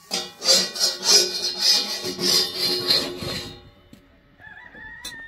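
A knife blade scraping across an iron saj griddle in a run of rasping strokes with a metallic ring. It stops about three and a half seconds in.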